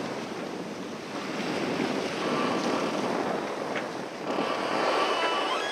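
Water rushing and splashing along a C&C sailboat's hull as it sails at about 7 knots, with wind buffeting the microphone.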